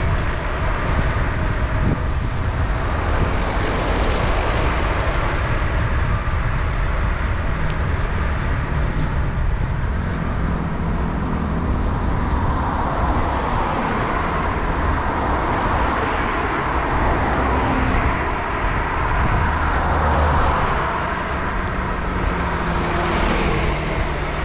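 Steady wind rush on the microphone while moving along a road, mixed with the noise of cars driving past.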